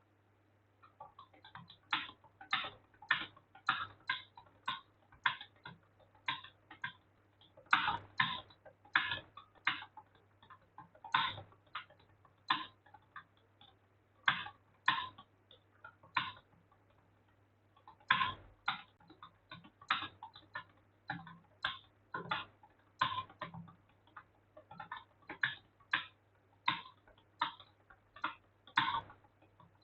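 Fast touch typing on a computer keyboard: a quick, uneven run of key clicks that starts about a second in and pauses briefly near the middle.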